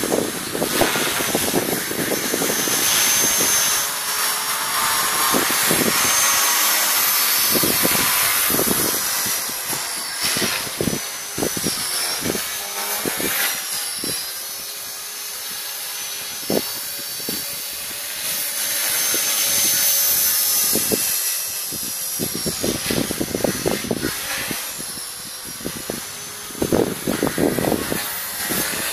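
ALZRC 450-size electric RC helicopter flying aerobatics overhead: a high motor and rotor whine that wavers up and down in pitch and swells and fades as it manoeuvres, over irregular low thumps.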